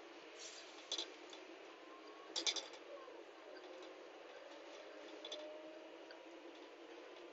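Faint steady road noise inside a moving vehicle, with a few light clicks and rattles, the loudest a short cluster about two and a half seconds in.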